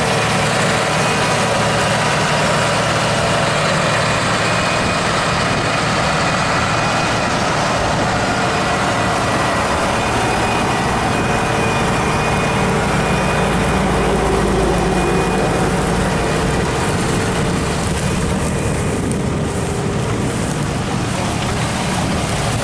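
Tractor's diesel engine running steadily under load, pulling a manure injection toolbar through the field.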